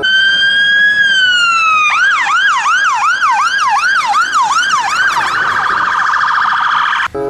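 Fire engine electronic siren: a slow wail rising and then falling, switching about two seconds in to a quick yelp of about two to three sweeps a second, then about five seconds in to a faster warble that cuts off suddenly.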